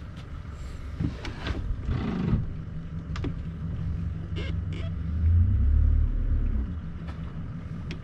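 Boat's outboard motor idling with a steady low hum, the rumble swelling heavier about five seconds in, with a few light knocks.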